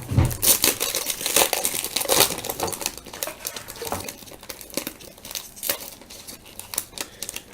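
Foil wrapper of a 1998 Bowman Chrome football card pack being torn open and crinkled by hand, an irregular run of crackles that is busiest in the first few seconds and thins out toward the end.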